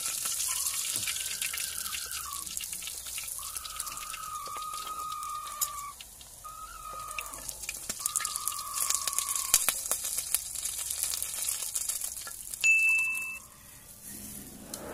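Oil sizzling and crackling in a wok as fish fry, with the tongs clicking against the pan. Several drawn-out tones sound in the background, and a short, loud high beep comes near the end.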